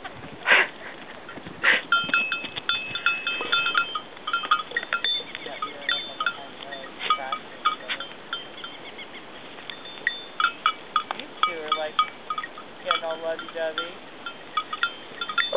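Small goat bells jingling in quick, irregular clusters as goats play and butt heads, with a few short goat bleats in between. Two sharp knocks come in the first two seconds.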